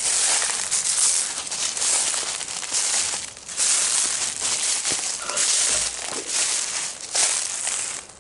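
Footsteps crunching and rustling through dry leaf litter on a forest floor, a steady walking pace of dense crackly swishes that stops abruptly near the end.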